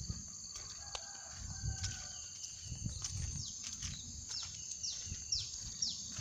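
Steady high-pitched insect drone, with a bird repeating short falling call notes about twice a second from about three seconds in. Low, uneven thuds from walking and handling the phone sit underneath.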